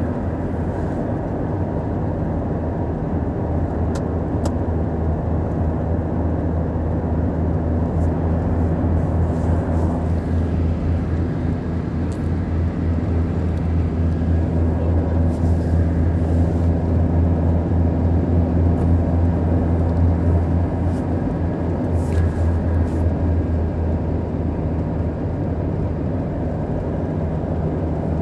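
Car driving at highway speed, heard from inside the cabin: a steady low engine drone with tyre and road noise, a little louder through the middle.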